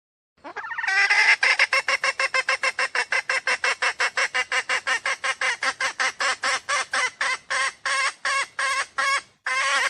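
Junglefowl call used as a trapping lure: a long run of harsh, pitched clucks, about five a second, that starts abruptly, spaces out slightly toward the end and breaks briefly just before a last burst.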